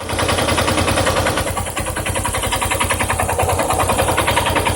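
Yamaha Ténéré 250 single-cylinder engine running at idle with a rapid, even rattling tick. The owner suspects the valves or the cam chain, with the chain tensioner or bearings as possible causes.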